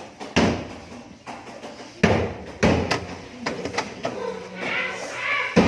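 A series of sharp knocks and thumps, about five in all, with two close together near the middle and one just before the end.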